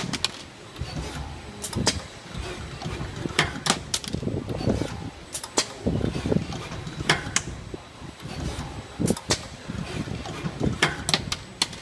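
ZX-250 spring forming machine running its cycle, forming spiral springs: sharp metal clacks, often two close together, repeat about every one and a half to two seconds over a steady mechanical whir.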